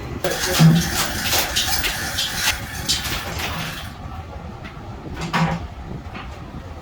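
Irregular knocks and clatter of metal workshop work, dense through the first four seconds, then a quieter stretch broken by a couple more knocks about five seconds in.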